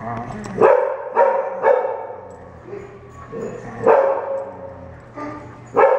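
Dogs at play: short pitched play barks and yips, three in quick succession in the first two seconds, another about four seconds in, and two more near the end.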